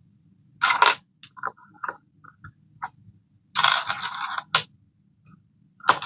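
Small plastic Lego pieces clattering and clicking as they are sorted and handled: two quick clatters early, a longer rattle midway, and scattered light clicks.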